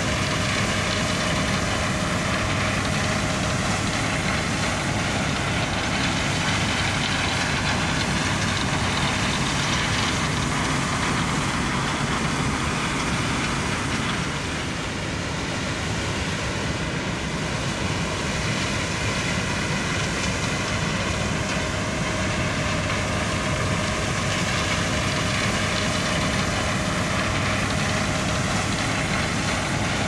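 Claas Lexion 8700 combine harvesting corn alongside a grain-cart tractor: heavy diesel engines and machinery running steadily with a constant hum, easing off slightly about halfway through.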